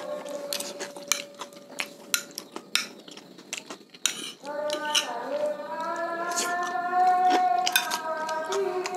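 Metal fork and spoon clinking and scraping against a ceramic plate as batagor is scooped up, in many short sharp clicks. Underneath is a pitched tune of long held notes, loudest in the second half.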